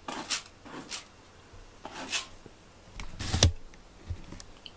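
Cat scratching in cat litter: a few short scraping rustles spaced irregularly, then a louder rustle with a dull thump about three seconds in.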